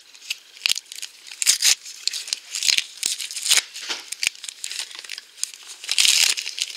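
Clear plastic shrink-wrap crinkling and tearing as it is peeled off a small plastic toy jar, in a string of short crackles with a louder, longer tear about six seconds in.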